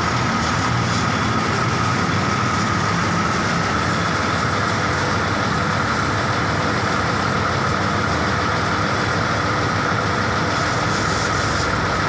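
Coach's rear-mounted diesel engine running steadily at idle with its engine bay open, a constant high whine over a low hum.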